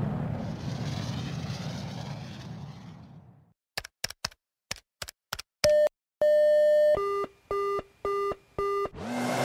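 Game-style weapon sound effects played one after another. An explosion's rumble fades away, then come several sharp, separate clicks. After them, electronic beeps: a short one, a longer one, then four short lower beeps in an even row.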